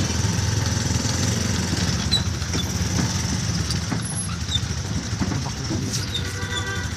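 Motorcycle engine of a Philippine tricycle running steadily while riding, heard from the sidecar as a low, even rumble.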